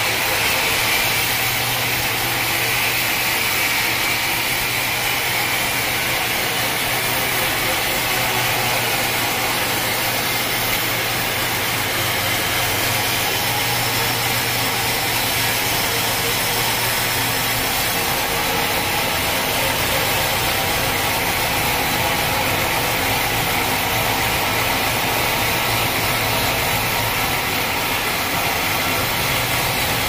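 A sawmill running steadily as it cuts an acacia log, a dense, even noise with a steady low hum that weakens a little over halfway through.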